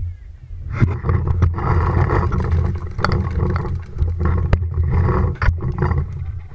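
Wind rush and rumbling handling noise on a body-worn camera's microphone as a paintball player sprints from the start to a bunker, broken by several sharp knocks.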